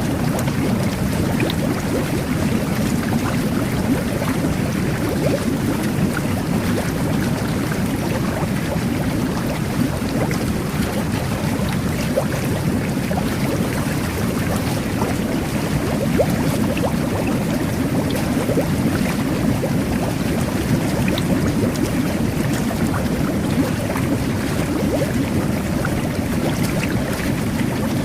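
Jet bath (whirlpool tub) jets churning the bathwater: a steady low bubbling rush with scattered small pops of bursting bubbles.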